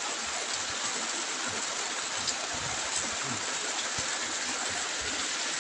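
Steady rushing of flowing water from a stream, an even noise with no breaks, with a few faint ticks over it.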